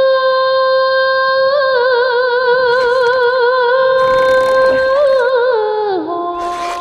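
A single unaccompanied voice singing one long held note. Vibrato sets in about a second and a half in, and the note slides down in pitch near the end.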